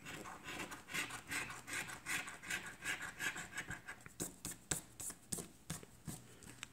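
A 5-peso coin scraping the latex coating off a lottery scratch-off ticket in quick rhythmic strokes, about four a second. About four seconds in, these give way to sharper, more spaced-out scrapes.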